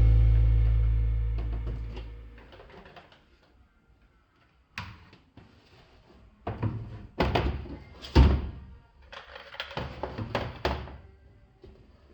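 Background music fading out, then a run of irregular knocks and clunks of household things being handled and set down, about half a dozen of them between five and eleven seconds in.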